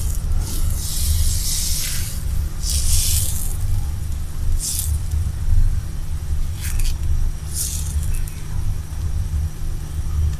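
Steel ladle spreading flour batter in circles over a hot, oiled cast-iron tawa: a series of short hissing scrapes, about five, over a steady low hum.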